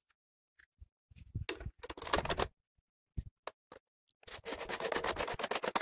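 Plastic air-filter housing, with its paper filter element inside, being handled and fitted onto a piston air compressor's cylinder-head intake: scraping and scattered clicks, then a fast run of ticks, about ten a second, in the last second and a half.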